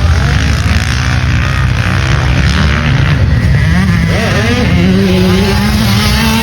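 Motocross bike engine running hard under heavy wind rumble, its note climbing about two-thirds of the way in and holding high.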